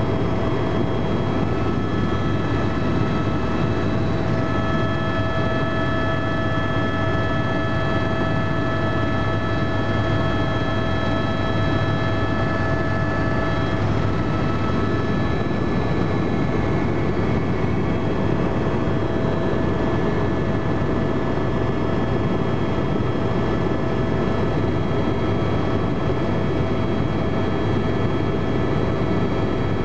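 Helicopter in steady cruise flight heard from inside the cabin: a constant low rotor drone with several steady whining tones over it.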